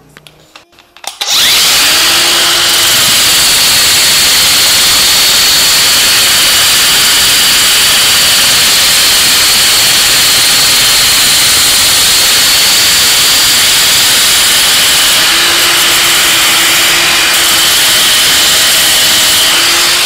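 Angle grinder and cordless drill running together: the drill spins a wooden dowel against the grinder's disc to shape it into a lever knob. It starts about a second in after a few clicks, then runs loud and steady with a high whine.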